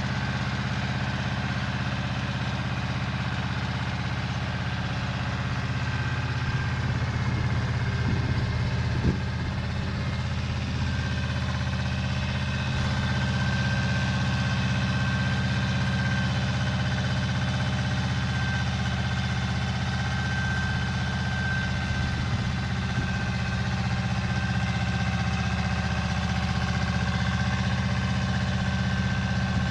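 Pasquali 425 compact tractor's engine running steadily under load while it pulls a two-furrow mouldboard plough through garden soil, with a steady high whine over the engine note. A single light knock comes about nine seconds in.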